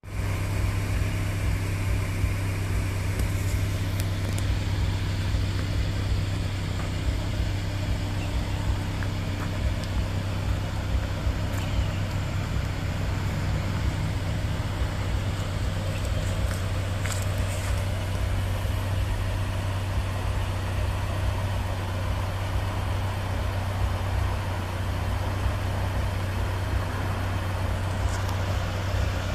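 2013 Subaru Legacy 2.5i's flat-four boxer engine idling steadily.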